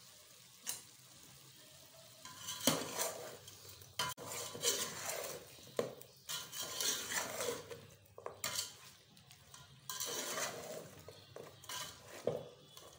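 Slotted metal spatula stirring chicken pieces in a metal pot, with irregular scraping and clanking against the pot's sides that starts a couple of seconds in.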